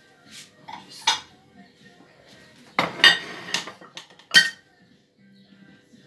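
Crockery and a kitchen knife clinking and knocking on a worktop as a plate is set down and handled. There are a few sharp clinks, the loudest cluster about three seconds in, then a single ringing clink a moment later.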